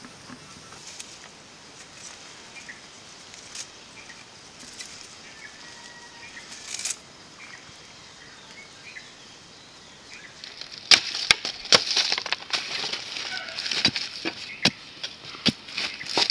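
A wooden stick jabbing and scraping into dry soil and leaf litter by hand: rapid rustling and scraping with many sharp knocks, starting about two-thirds of the way in after a quieter stretch with only a few faint clicks.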